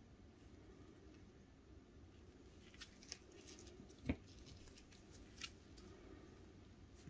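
Small plastic puzzle pieces being handled and set down by gloved hands: a few light clicks and taps, the sharpest about four seconds in, another about a second later, over near silence.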